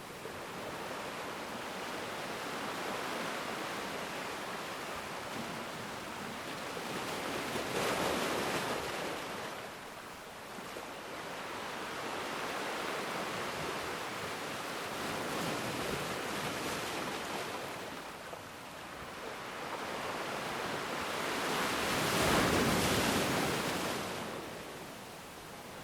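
Ocean surf: waves breaking and washing up on shore in a steady hiss, with two louder breakers swelling and fading, about 8 seconds in and near the end.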